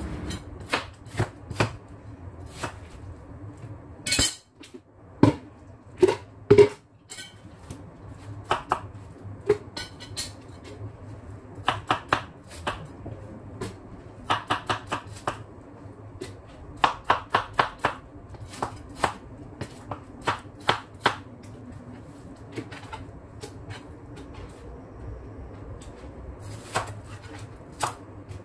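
Kitchen knife chopping watermelon on a plastic cutting board: quick runs of knocks as the blade goes through the fruit and hits the board, with a few heavier thuds about four to seven seconds in.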